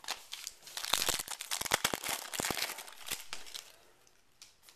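Crinkling and tearing of a trading card pack's wrapper as it is handled and opened: a dense run of sharp crackles for about three seconds that then dies away.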